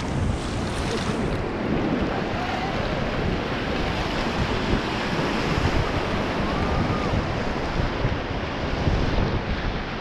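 Whitewater rapid rushing and churning around an inflatable raft, with wind buffeting the microphone.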